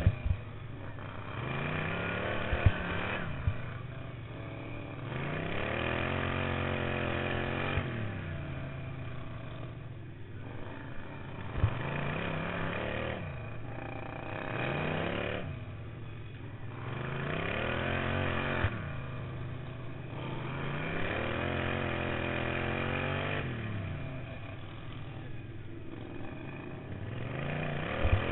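Racing lawn mower's overhead-valve V-twin engine, close up, revving up and dropping back again and again, about every four to five seconds, as it accelerates and backs off around a dirt track. A few sharp knocks stand out over the engine.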